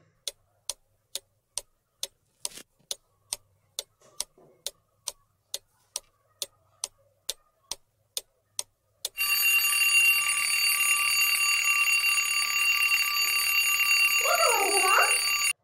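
Ticking-clock sound effect, about two and a half ticks a second, counting down the quiz's answer time. About nine seconds in it gives way to a steady alarm-clock bell ringing as time runs out.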